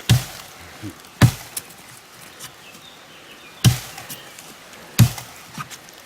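Wood being chopped: four loud, sharp strikes about one to two and a half seconds apart, with a few lighter knocks between them.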